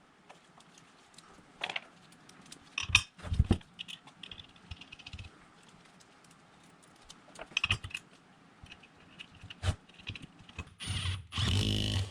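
Steel bolts and brackets clinking and knocking now and then as they are fitted together by hand. Near the end, a louder steady sound with a low hum starts.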